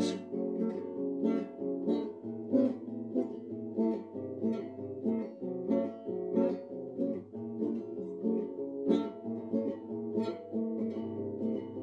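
Instrumental break in a sertanejo modão song: acoustic guitar picking a melody in a steady rhythm over a bass line, with no singing.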